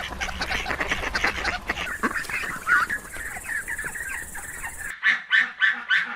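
A flock of waterfowl calling over one another. About five seconds in the sound changes abruptly to a quick run of repeated calls, about three a second.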